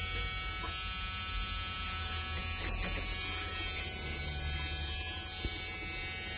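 Steady electric motor buzz and hum, even and unchanging, with no engine running.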